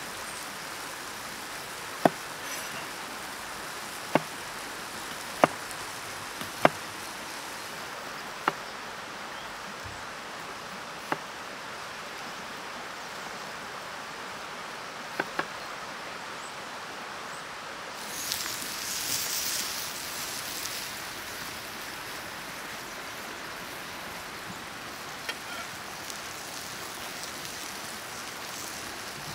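Cleaver-style knife chopping a red onion on a wooden cutting board: single sharp knocks of the blade against the board every second or two, eight or so in all, over a steady background hiss. A brief high hiss follows a few seconds later.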